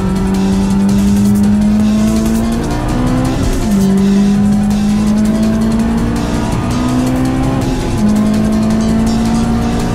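Honda S2000's four-cylinder engine at high revs on track, its pitch climbing slowly under acceleration and dropping sharply twice, about three and a half seconds in and near eight seconds, each time climbing again. Tyre and road noise run underneath.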